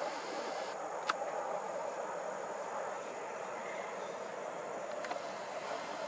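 Dusk outdoor ambience: a steady high insect trill over a low, even rushing background, with one sharp click about a second in.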